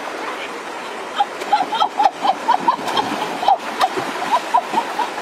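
Shallow river water splashing as a woman grapples with a large fish and lunges after it: a rapid, irregular run of plops and slaps starting about a second in, over a steady wash of flowing water.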